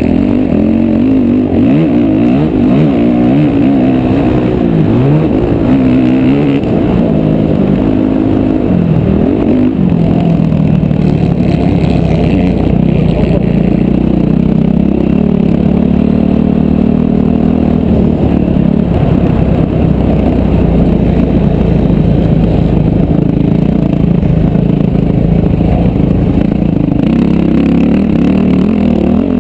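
Motocross bike engine ridden hard on a dirt track, heard loud from the rider's helmet camera. The engine revs up and down through the first ten seconds, then holds a fairly steady pitch for much of the rest.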